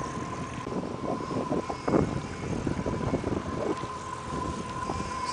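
Boat motor running, with a steady high whine, under wind buffeting the microphone in uneven gusts; the strongest gust comes about two seconds in.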